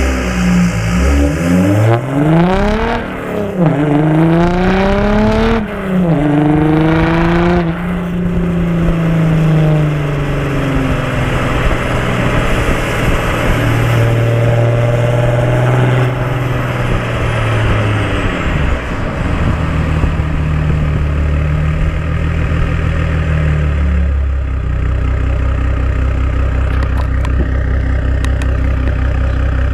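Audi A5 3.0 TDI V6 diesel engine through open exhaust pipes, revved up twice in quick succession. It then holds raised revs for several seconds, steps down, and settles into a steady idle for roughly the last ten seconds.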